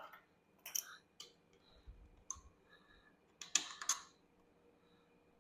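A few light clicks and taps from hands working on the golf cart's parts and tools, with a quick cluster of them about three and a half seconds in.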